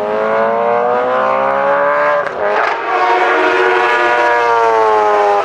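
Classic racing sidecar outfit's engine running at high revs. Its pitch climbs for about two seconds, drops briefly, then climbs again and holds high, easing down slightly near the end.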